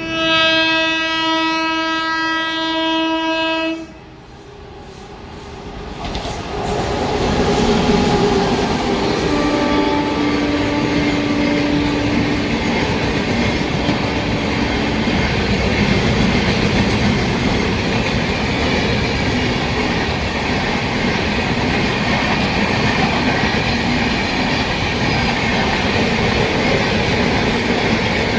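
A train's locomotive horn sounds one loud, steady blast of about four seconds; then the train approaches and runs past with steady rolling noise of wheels on rails, with another, fainter horn note about ten seconds in.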